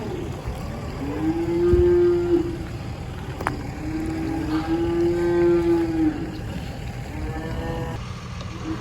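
Cattle mooing: several long moos, one after another, each rising and then falling in pitch.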